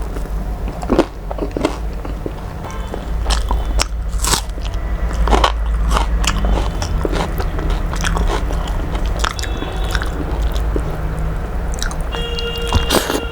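Close-miked eating: a person biting and chewing crunchy food, with irregular crisp crunches and mouth clicks, over a steady low hum.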